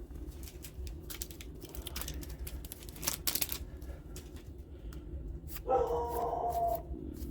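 Booster-pack foil wrappers and trading cards crinkling and clicking as they are handled. Near the end, a short steady pitched whine lasts about a second.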